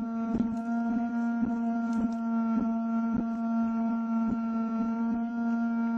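A small electric fan close to the microphone humming steadily at one pitch, with soft knocks roughly every half second.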